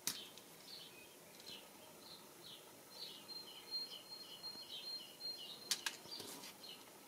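Faint birdsong in the background: short high chirps repeated over and over, with one held whistled note in the middle. Sharp clicks sound once at the start and twice close together near the end.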